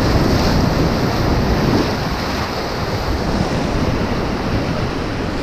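Whitewater of a river rapid rushing around a raft, a loud, steady rush of water with wind buffeting the microphone.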